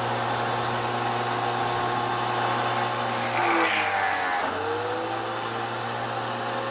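Electric Kinshin pressure washer running with a steady motor hum; about four seconds in the motor dips and then spins back up.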